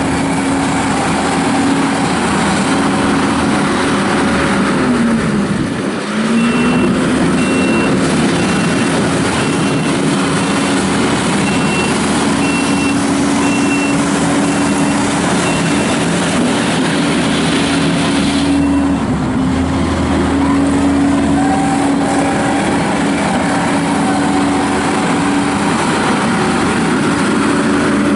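Kubota SVL75-2 tracked skid steer's four-cylinder diesel engine running steadily, its pitch sagging briefly and picking back up about six seconds in. Then its backup alarm beeps about once a second, around ten times, while the machine reverses.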